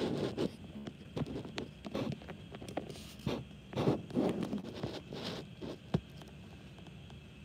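Rustling and scraping close to the microphone, with many irregular light clicks: the sound of a handheld phone being handled.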